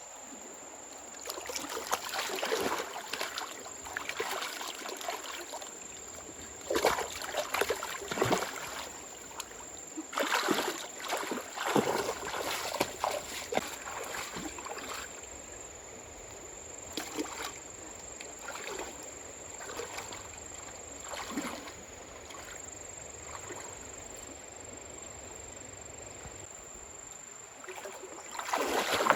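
Water splashing and sloshing in irregular bursts, over a steady trickling background.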